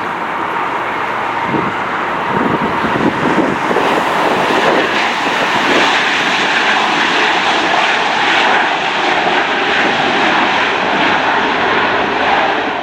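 Jet engines of a heavy wide-body airliner at close range: a loud, steady rushing roar that swells a little over the first few seconds and holds.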